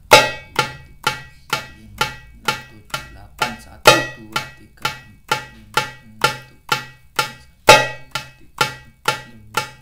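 Darbuka struck with single left-hand index-finger strokes near the rim, about two a second in a steady count of eight. The first stroke of each eight is played harder as an accent, about every four seconds.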